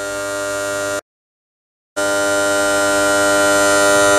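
Steady machine hum at one fixed pitch with many overtones, growing slowly louder. It drops out completely for about a second near the start and then resumes.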